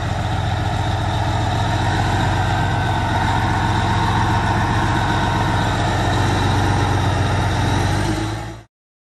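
Heavy diesel engines running steadily with a deep, even hum. The sound cuts off abruptly near the end.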